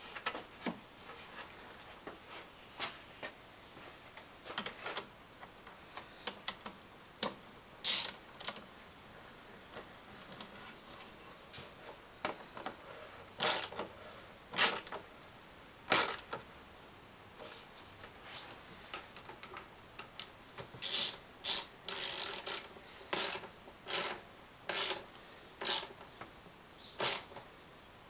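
Ratchet wrench being worked under a truck's hood in short strokes, with scattered sharp clicks and knocks of metal tools and parts; the clicking comes thicker and faster in the last several seconds.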